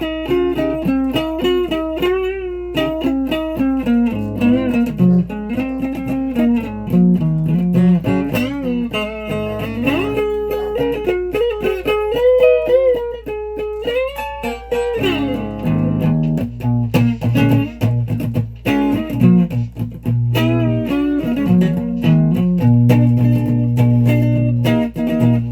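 Guitar played note by note, with a few bent notes near the middle, moving to lower, fuller notes in the second half over a steady low hum.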